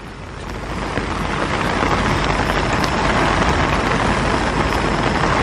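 Heavy rain pelting down in a sudden, violent downpour, heard from inside a bivvy: a dense, steady hiss that swells up over the first second or so.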